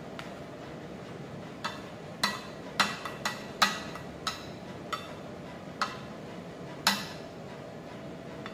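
Plastic serving spoons clinking against a ceramic plate as salad is scooped and arranged: about ten sharp clinks, each with a short ring, irregularly spaced over about five seconds.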